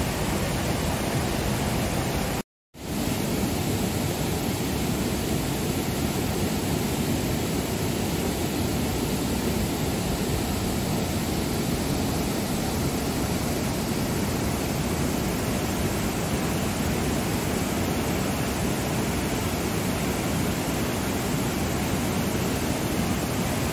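Steady rush of river water pouring over a weir, an even noise with no rhythm. It cuts out completely for a split second about two and a half seconds in, then resumes.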